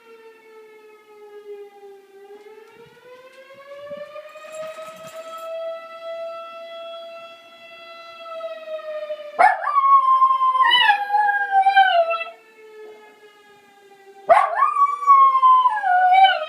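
A dog wearing a cone collar howls twice, two loud, wavering howls that fall in pitch, the first starting about halfway through and the second near the end. Beneath them runs a long, unbroken wailing tone that rises slowly and then holds, like a siren.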